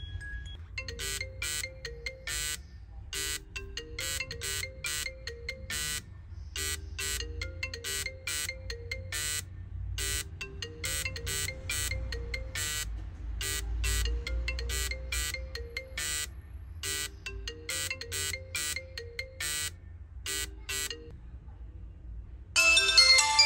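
iPhone 7 ringing for an incoming call, its ringtone repeating the same short melodic phrase every two to three seconds. Near the end a different, louder ringtone starts on a Sony Xperia XA1.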